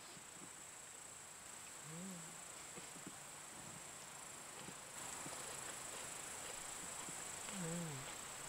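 Steady high-pitched chirring of insects, getting louder about five seconds in. A woman hums a short 'mm' twice, about two seconds in and near the end.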